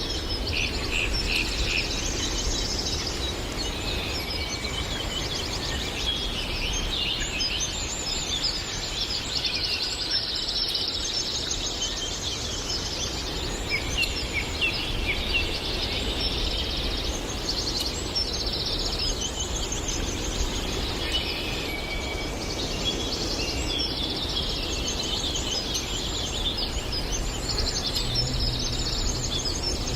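A chorus of several birds singing at once, overlapping high chirps and trills, over a steady low background rumble.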